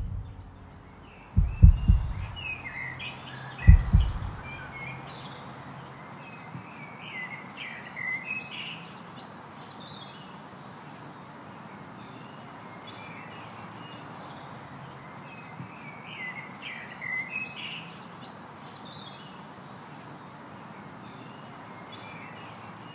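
Birds chirping in short bursts over a steady outdoor hiss, after a few deep thuds in the first four seconds.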